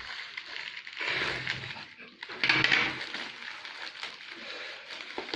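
Earphone packaging being unwrapped by hand: wrapping rustling and crinkling, with two louder bursts about a second in and about two and a half seconds in.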